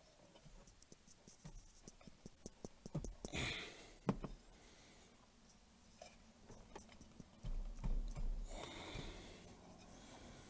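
Faint rustling and small clicks of rodent nesting debris being pulled out of a blower motor, with louder stretches of rustling about three seconds in and again around eight seconds.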